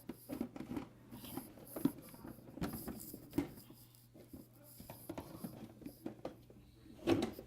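Plastic containers and lids being handled, with irregular light knocks, taps and rattles, the loudest near the end.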